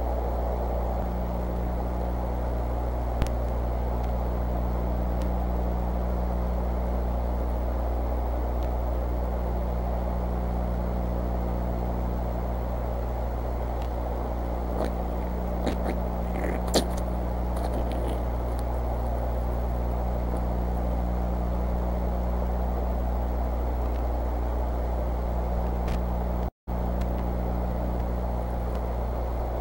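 Steady electrical hum and hiss from the eagle nest camera's microphone, with a few faint short clicks and rustles around the middle and a split-second dropout to silence near the end.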